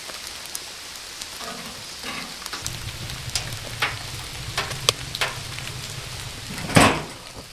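Light rain falling, a steady patter with scattered ticks of drops. A low rumble joins a few seconds in, and a brief, louder rustle comes near the end.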